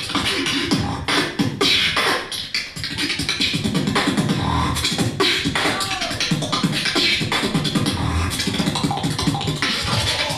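Solo beatbox performance heard through a venue sound system: rapid drum-like kicks, snares and hi-hat clicks made with the mouth over deep bass tones, with a few sliding vocal pitches.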